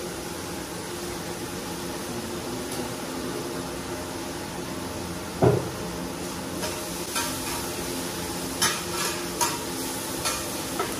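Shredded meat and vegetables stir-frying in oil in a large flat black pan: steady sizzling. There is a dull thump about five and a half seconds in, then a metal spatula clinks and scrapes against the pan several times near the end.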